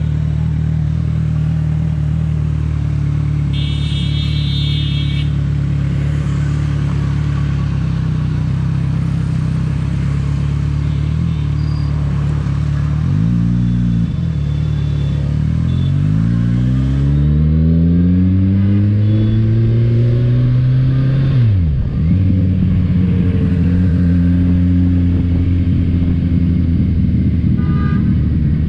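Kawasaki Ninja 1000's inline-four engine running while riding: a steady cruise, then a quick throttle blip about halfway. A long rising pull through the revs follows, cut off sharply at a gear change, and the engine settles into a steady higher note. A short high-pitched tone sounds about four seconds in.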